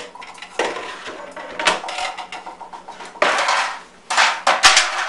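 Kitchen bowls and dishes clattering as a mixing bowl is fetched and handled: a string of irregular knocks and scrapes, with a longer rattle a little past three seconds in.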